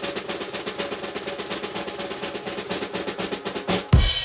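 Background music: a fast, even drum roll over sustained notes, ending about four seconds in with a loud crash whose cymbal rings and fades.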